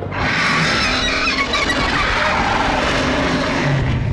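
Dragon roaring, a sound effect: one long, loud, rough roar that dies away at the very end.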